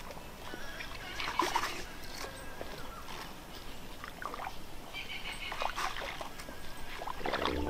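Irregular splashing and sloshing of feet wading through a flooded paddy field while sprouted rice seed is broadcast by hand onto the wet mud.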